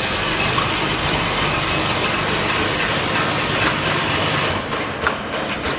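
Automatic CTO carbon block filter packing machine running: a steady rushing noise for about four and a half seconds, then a few sharp clicks near the end.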